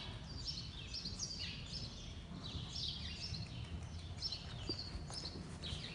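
Small birds chirping repeatedly in short chirps that fall in pitch, over a low, even rumble.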